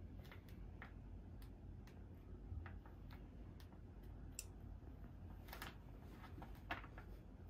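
Faint, scattered light clicks and crinkles from fingertips pressing and picking at the printed letters on a T-shirt lying on an ironing board.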